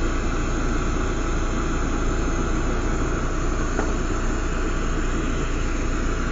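Lampworking glass torch burning with a steady rushing hiss, over a constant low hum.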